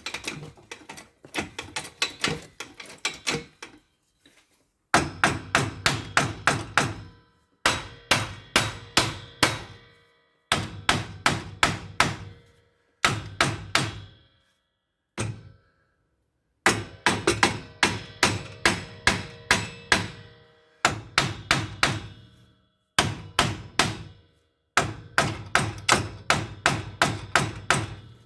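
Hammer striking a metal suspension part in quick runs of blows, about five a second, with short pauses between the runs and a metallic ring. The blows are driving a tight-fitting part home, which the mechanic thinks is being held up by its painted surface.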